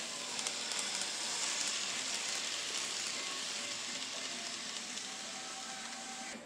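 N scale model Amtrak passenger train running past on its track: a steady, even hiss of the small wheels and motor that cuts off abruptly near the end.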